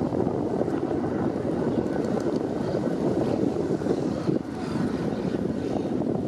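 Jet engines of a Boeing 777 freighter climbing out after takeoff: a steady, deep rumble, with wind buffeting the microphone.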